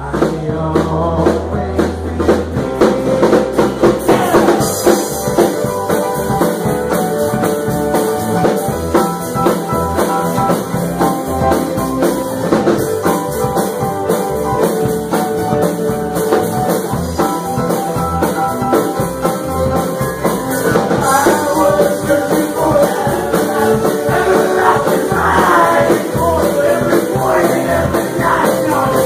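A live rock band playing a song: drum kit, acoustic and electric guitars and keyboard, with voices singing.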